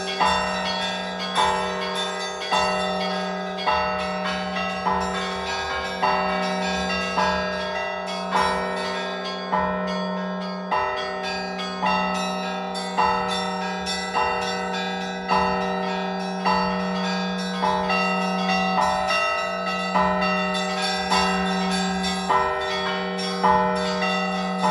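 Russian Orthodox church bells rung together by hand: a deep bell hums continuously beneath a cluster of higher bells struck in a regular pattern about every second and a quarter.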